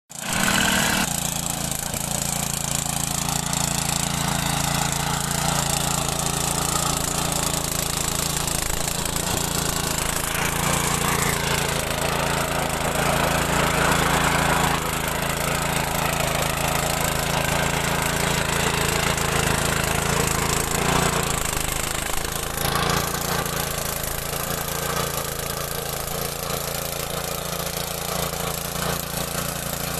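Mini tractor engine running steadily.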